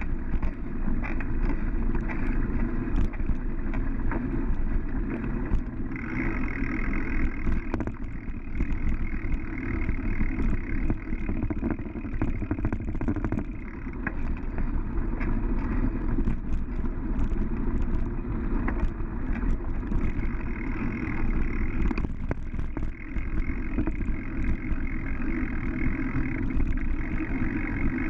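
A bicycle moving along a sandy dirt road, heard from a camera mounted on the bike: a steady rush of wind and tyre noise with frequent small knocks and rattles from bumps.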